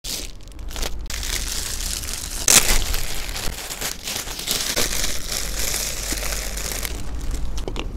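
Thin plastic bag crinkling and rustling as it is bunched and handled around a netted cured ham, with the loudest crackle about two and a half seconds in.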